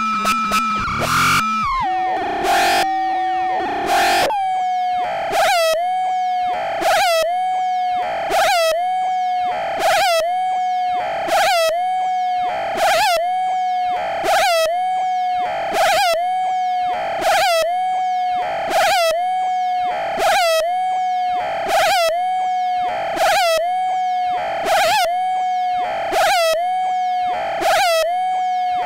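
Infernal Noise Machine desktop analog synthesizer, self-patched. It opens with a second or two of chaotic noise, then settles into a steady mid-pitched tone broken about once a second by a short swooping burst, a wobbly ring like a drunk phone ringing.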